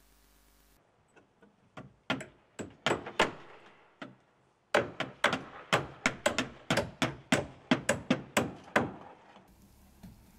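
Sharp knocks on wooden roof battens: a few scattered ones, then a quick, even series of about four a second for several seconds.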